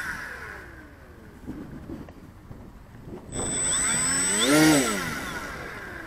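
Electric motor and propeller of an FMS Super EZ RC trainer plane, heard from the plane's onboard camera. A fainter whine drops in pitch in the first second; about three seconds in the motor is throttled up sharply, its whine climbing to a peak and then falling back as it winds down.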